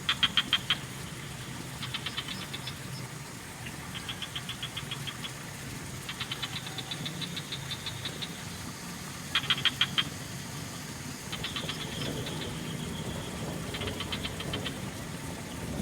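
Frogs calling back and forth: short pulsed croaks, each a rapid train of clicks lasting under a second, from several callers at different loudness, repeating every second or two. The two loudest calls come at the very start and about two-thirds of the way through, over a low steady rumble.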